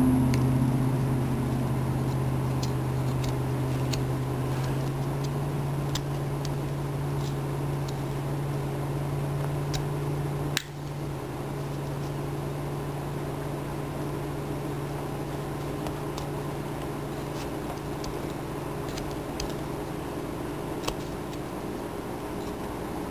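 Steady low background hum, with faint scattered ticks of a small carving knife slicing chips off a wooden carving, and a sharp click about ten seconds in.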